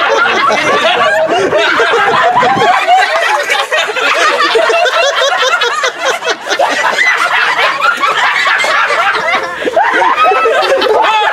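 Several people laughing and talking over one another at once, a loud, continuous tangle of laughter and voices.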